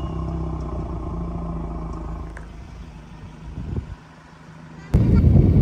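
A vehicle's engine running steadily, fading out over about four seconds. About five seconds in, a loud, noisy rumble starts abruptly.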